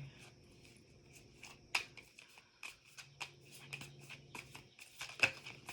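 Tarot cards being handled: faint, irregular light clicks and taps of cards moved and laid down, over a faint steady hum.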